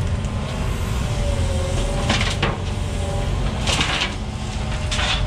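Excavator's diesel engine running steadily under load, with three short hissing bursts about two, three and a half, and five seconds in.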